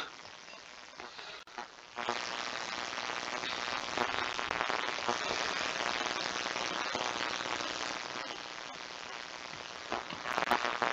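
Steady dense crackling hiss, full of tiny ticks, that starts about two seconds in and runs on, with a few clicks of typing on a computer keyboard.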